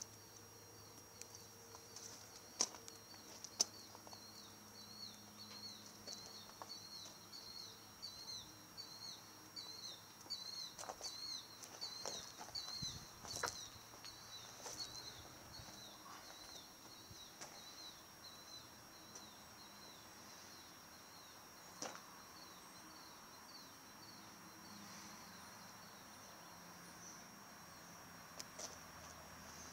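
Faint outdoor ambience: a steady high whine and a long run of quick high chirps, about two or three a second, that fade out about twenty seconds in, with a few light clicks and crunches of footsteps on gravel.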